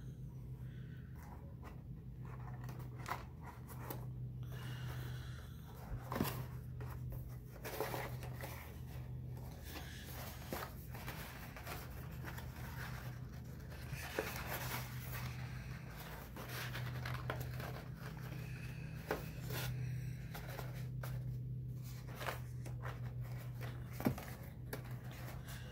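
Stiff cardstock being handled, creased and pressed into shape by hand: scattered rustles, taps and crinkles of paper, over a steady low hum.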